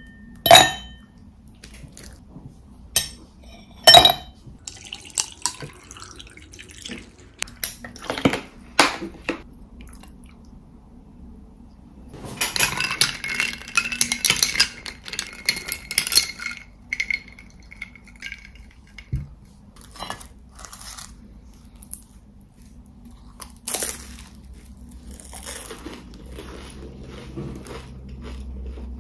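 Ice cubes dropped clinking into a glass, the first two with a ringing clink; a little later liquid is poured in with a short rising tone as the glass fills. In the middle, ice rattles against the glass for about four seconds as it is stirred with a straw, followed by scattered light clicks and handling of a crisp pastry.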